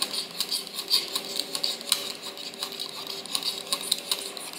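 A small knife blade scraping the wax coating off an apple's skin in quick, repeated scratchy strokes, several a second.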